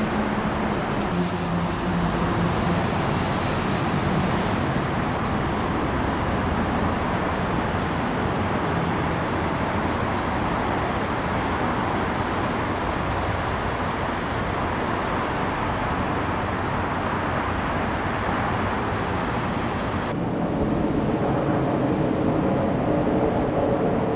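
Steady road traffic noise from passing vehicles. About four seconds before the end the sound changes to a closer, steadier hum carrying a few held tones.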